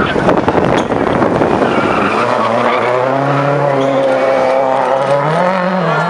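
Ford Focus RS WRC rally car's turbocharged four-cylinder engine at full race pace. At first it is a rough, noisy rush, and from about two seconds in a steady engine note wavers up and down with the throttle, climbing briefly near the end.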